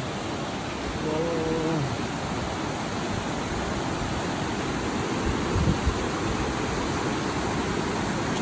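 Steady hiss of rushing water, even and unbroken, with a short voice sound about a second in.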